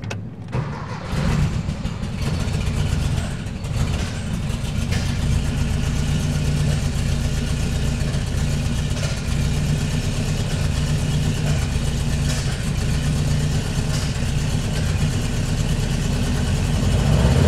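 1968 Porsche 912's air-cooled 1600cc flat-four, on Weber 40 carburettors with no choke, firing up from a cold start about a second in and then running steadily at idle.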